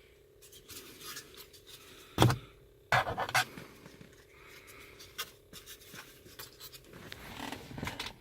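Plastic cover of a car's rain and light sensor being handled and closed: rubbing and small clicks, a sharp knock about two seconds in and a second knock with scraping just after.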